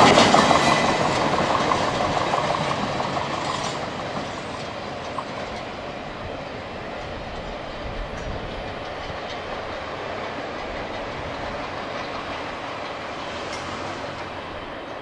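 CSX double-stack intermodal freight train rolling away, its rumble fading over the first few seconds and then holding low and steady.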